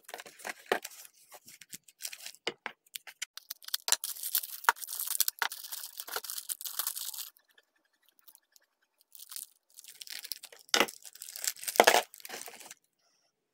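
Thin black plastic bags crinkling and tearing as they are handled and opened, in two spells with a pause of about two seconds between them, and louder tearing twice near the end.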